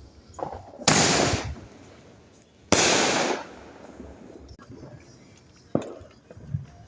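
Fireworks going off: two loud, sudden bursts about two seconds apart, each lasting over half a second, then a sharper, shorter bang near the end.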